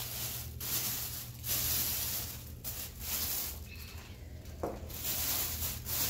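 Thin plastic bag rustling and crinkling as a hand spreads and smooths it inside a toilet bowl as a liner, in uneven stretches broken by short pauses.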